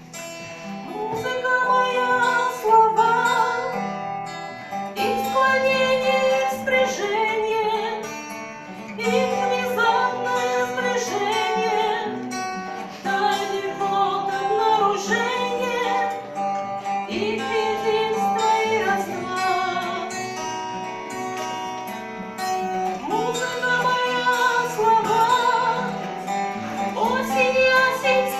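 A song sung to acoustic guitar accompaniment: voices singing phrase after phrase over guitar chords.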